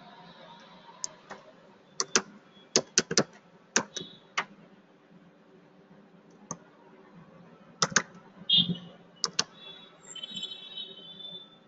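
Computer keyboard keystrokes as a terminal command is typed: scattered sharp key clicks, some in quick pairs and runs of three, with pauses between, over a steady low hum.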